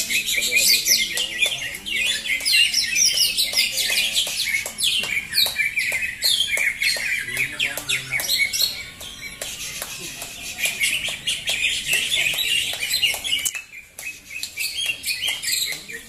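Several caged green leafbirds (cocak hijau) singing at once in full song, an overlapping run of rapid high chirps, trills and whistled phrases. The song dips briefly into a short lull near the end.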